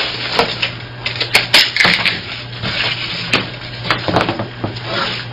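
Old calf skin banjo head being pulled and torn free of the pot after being scored with a razor blade: irregular sharp clicks, crackles and scraping. A low steady hum runs underneath.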